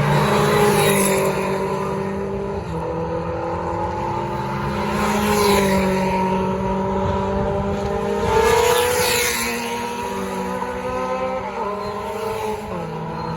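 Historic Formula 2 racing cars' engines at speed, several cars running together, their pitches rising and falling as they pass. Louder pass-bys come about half a second, five and a half and eight and a half seconds in.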